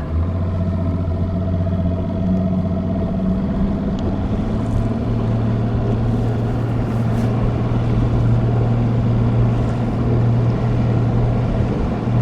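Bass boat's outboard motor running under way, a steady drone that steps up in pitch right at the start and again about four seconds in as the throttle is opened, then holds.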